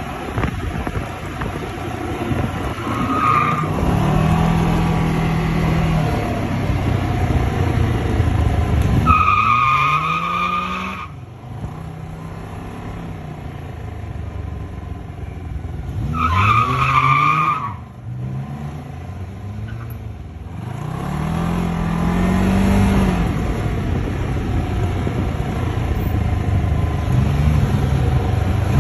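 Can-Am Spyder three-wheeler engine running while riding, its pitch climbing and dropping again and again as it accelerates through the gears and eases off. A brief high squeal cuts in three times, at about 3, 10 and 17 seconds in.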